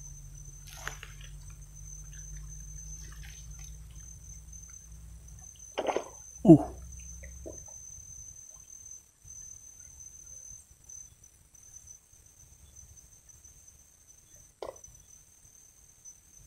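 A short call from an unseen animal inside a waterlogged burrow, then a loud one that falls steeply in pitch, with a fainter call shortly after and another near the end. The uploader calls the sound booming from the hole. It was taken for a big eel, but the hole held a fish.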